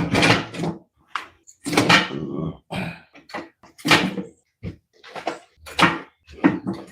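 A string of short knocks and scrapes, about one or two a second, as a loose test seat is shifted and set back into position in a kit-car chassis.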